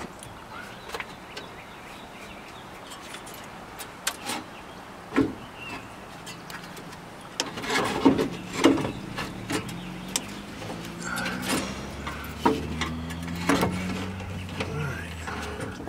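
Scattered metal knocks and clunks as a car radiator is shifted and seated in the engine bay, busiest around the middle and again near the end. A low engine drone runs underneath from about six seconds in and stops just before the end.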